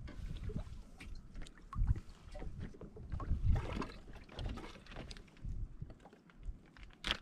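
Small waves lapping against a fishing kayak's hull, with irregular knocks and small clicks from tackle being handled on board.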